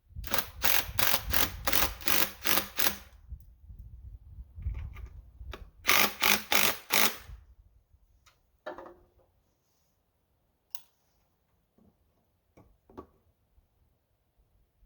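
Camera zoom and handling noise: a rapid run of mechanical clicks, about three a second for roughly three seconds, then a shorter run a few seconds later and a few scattered single clicks.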